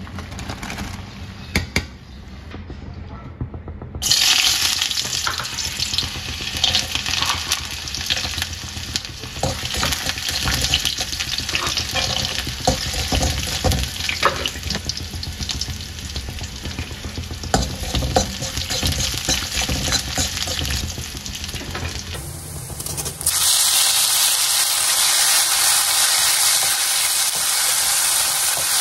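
A few seconds of boiling water as chunks are tipped into the pot, then cashews sizzling and crackling in hot oil in a wok. After a cut about 23 seconds in, shredded vegetable strands sizzle louder and brighter while a spatula stirs them.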